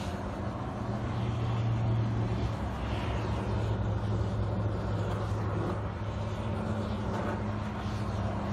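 Backhoe engine running steadily with a constant low hum.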